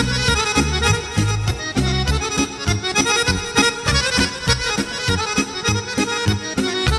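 Instrumental break in a Serbian folk song: accordion playing the melody over bass guitar and a steady drum-machine beat, without vocals.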